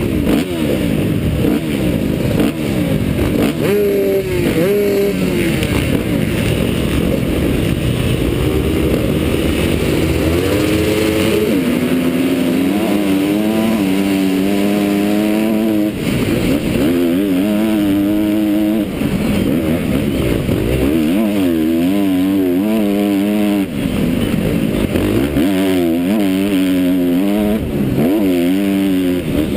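Motocross bike engine heard close up from on the bike, revving hard under throttle with its pitch climbing and dropping again and again as it accelerates and shifts along the dirt track.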